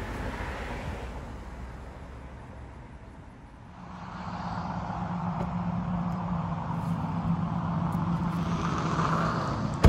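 Cars on a road: engine and tyre noise fades away over the first few seconds, then a steady engine hum comes in and grows louder. A single sharp knock lands at the very end.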